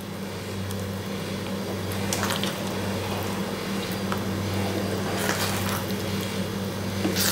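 A spatula stirring thick, nearly cooked wheat halwa in a pan as the ghee oozes out of it: a sticky squelching with a few brief scrapes against the pan, over a steady low hum.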